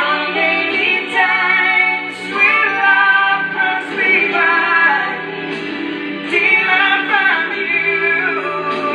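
Slow rock song: a solo voice singing long, sliding notes over instrumental backing.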